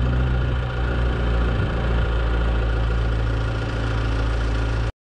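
A large vehicle engine running at a steady speed, a deep even drone with no revving; the sound cuts off abruptly just before the end.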